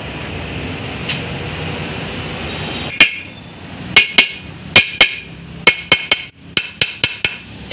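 A hammer tapping a Mahindra Bolero gearbox housing part into place: about a dozen sharp, ringing metal strikes, some in quick pairs, starting about three seconds in after a steady background hiss.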